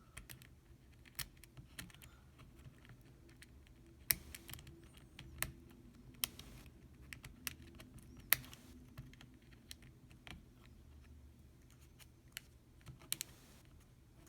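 Faint, irregular small plastic clicks and taps as a MacBook keyboard's key mechanism and keycap are fitted back onto their hooks, a few sharper snaps among them.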